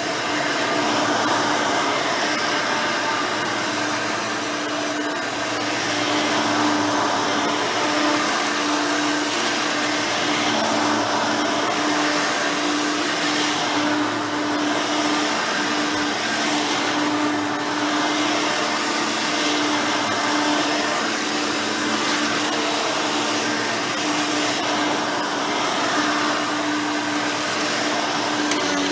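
Hoover Elite 5.0 upright vacuum running on carpet with a steady hum, its rebuilt original 5-amp motor and 7-blade fan turning at a lower RPM than higher-amperage models, with the brush roll agitating the carpet. The level swells slightly now and then.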